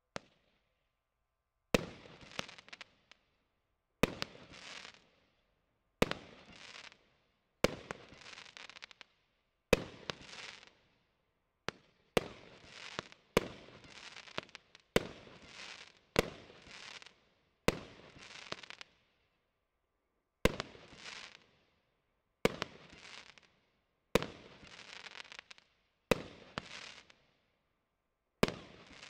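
A 25-shot, 30 mm consumer firework cake (Triplex TXB031 Bandit) firing shot after shot. Each shot is a sharp bang, followed by about a second of crackle as the stars burst, repeating roughly every two seconds with one longer gap partway through.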